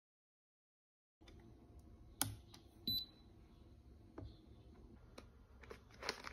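Faint handling sounds at a desk: a few light clicks and a short high beep from a digital coffee scale, then a plastic coffee bag crinkling near the end.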